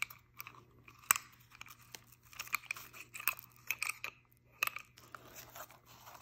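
Handling noises from a pneumatic random orbital sander and its hook-and-loop pad being handled and set down on a wooden workbench: a sharp click about a second in, then a run of smaller clicks and crinkly rustles.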